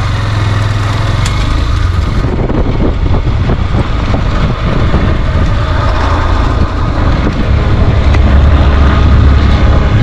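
Motorcycle engine running as the bike rides along a rough mountain road, heard from on board the bike, with road noise; it grows louder in the last couple of seconds.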